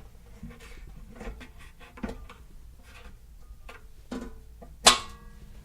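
Lower wheel door of a Record Power Sabre 350 bandsaw being unlatched and opened: a string of small clicks and knocks, then one sharp metallic clunk with a brief ring near the end.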